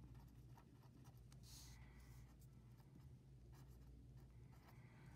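Felt-tip permanent marker writing on paper, heard as a faint series of short strokes as a few characters are written.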